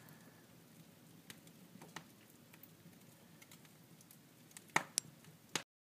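Wood fire crackling in a fireplace: scattered faint pops and snaps over a low hiss, with two louder pops near the end before the sound cuts off suddenly.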